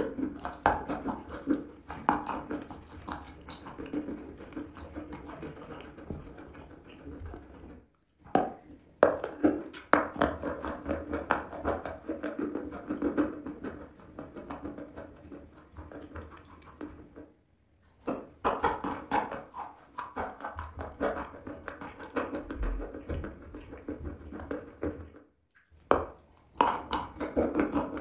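Close-miked chewing and crunching of wet, paste-coated chalk, with crackly bites and wet, smacking mouth sounds. The sound cuts off briefly three times and resumes.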